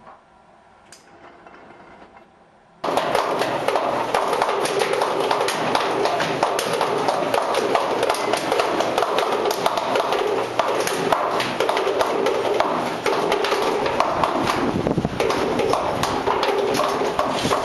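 A ball-handling machine running, with a loud, dense, unbroken clatter of many hard balls knocking and rolling together. It starts abruptly about three seconds in, after a few seconds of low quiet.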